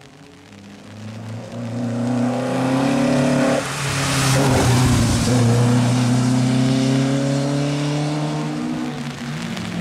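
Historic rally car at racing speed approaching at full throttle, its engine note climbing. The note drops suddenly about three and a half seconds in, the car passes close about a second later, and it pulls away with its engine running hard at high revs.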